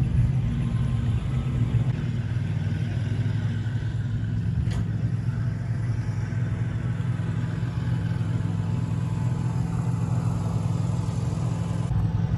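Steady low engine rumble from vehicles running nearby, with a faint click about five seconds in.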